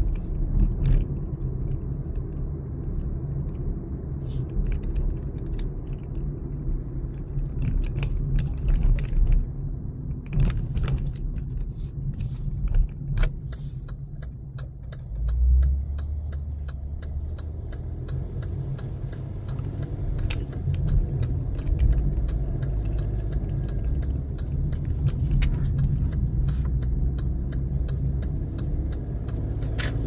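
Car cabin noise while driving: a steady low engine and tyre rumble, with many small clicks and light rattling inside the car. The rumble swells about halfway through.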